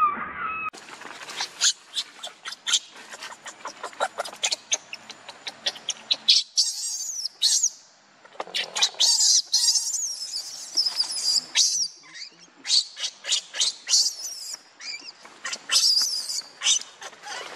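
Baby monkey crying in high-pitched squeals, a string of short squealing calls from about six seconds in, with many quick clicks before and between them.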